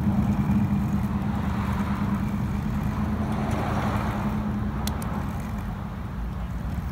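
Steady low engine rumble, with a sharp click about five seconds in.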